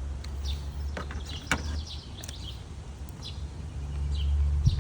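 Light clicks and knocks of plastic air-filter housing parts being handled and fitted, a few of them about a second or two in, over a low rumble that grows loudest near the end. Birds chirp faintly in the background.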